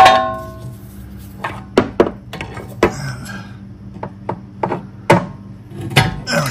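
Steel pry bar levering a car's rear suspension control arm end out of its mount at the hub knuckle. A ringing metal clang at the start, then a string of sharp, irregular metal knocks and clicks as the bar shifts and the arm works loose.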